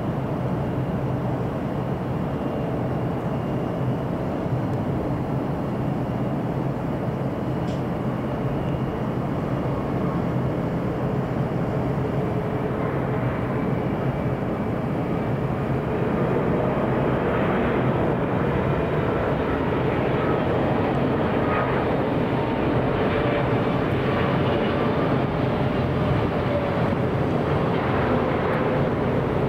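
Boeing 777 turbofan engines running: a steady jet rumble with a faint whine that drifts slowly in pitch, growing a little louder about halfway through.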